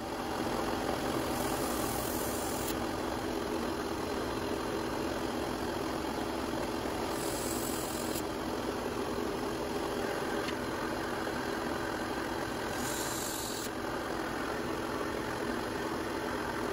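Benchtop drill press motor running steadily at about 2200 RPM while a number 3 machinist bit drills holes in a phenolic router insert plate. Three short spells of higher-pitched cutting noise come as the bit goes into the plate.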